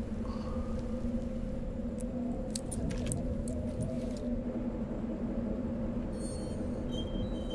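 Low, steady sci-fi film ambience drone with two held tones, broken by a handful of sharp metallic clicks about halfway through. Near the end come a brief high hiss and short high electronic beeps as the rifle scope view comes up.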